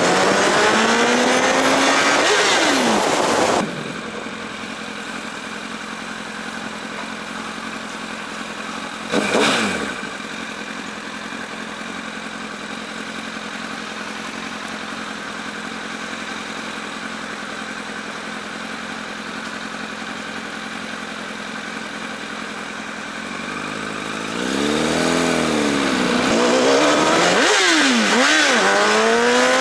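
Motorcycle engine accelerating with rising and falling revs, then settling into a quieter steady running noise. About ten seconds in, a passing vehicle briefly sweeps down in pitch. Near the end the engine revs up and down again through several rises.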